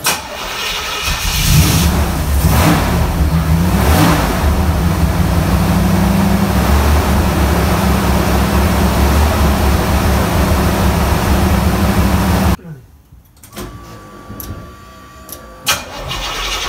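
1982 Chevrolet Camaro Z28's Cross-Fire Injection 5.0 L V8 starting, revving a couple of times in the first few seconds, then idling steadily. The sound drops away abruptly about three-quarters through, and the engine fires up again near the end.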